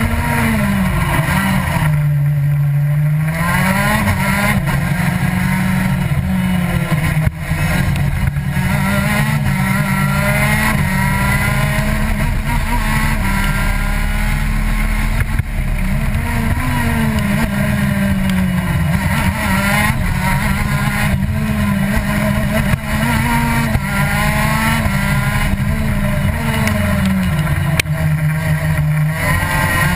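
Racing kart's engine heard on board at speed, its pitch rising and falling with the throttle through the lap. The pitch drops low about two seconds in and again near the end, then climbs back up.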